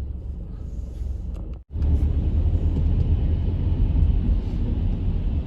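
Car cabin noise while driving: a steady low rumble of engine and tyres on the road. It cuts out abruptly for an instant about one and a half seconds in, then comes back louder.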